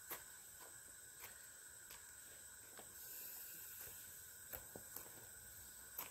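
Near silence: a faint steady high hum and hiss, broken by a few soft, scattered clicks.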